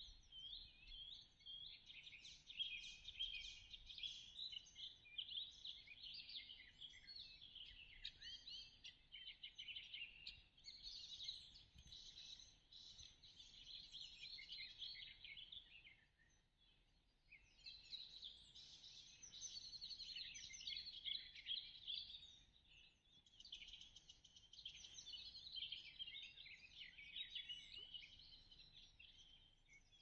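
Faint birdsong: several small birds singing at once in a dense run of quick chirps and trills, dropping away briefly a little past halfway before picking up again.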